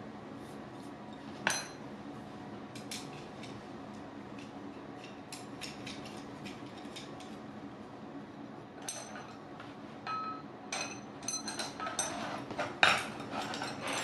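Metal pole sections of a campfire cooking tripod clinking and knocking together as they are handled. Scattered light clinks at first, then a busier run of knocks near the end.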